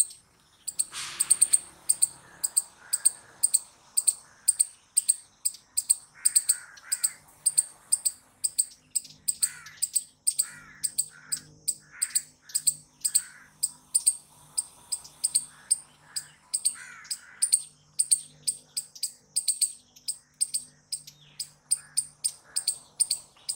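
Palm squirrel chirping: a sharp, high-pitched chip repeated steadily about two to three times a second, with softer calls of other birds underneath.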